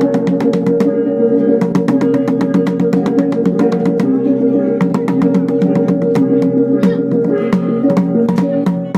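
Sumbanese tadingang gongs struck in a fast, even rhythm of about seven strokes a second, their pitched tones ringing on steadily underneath.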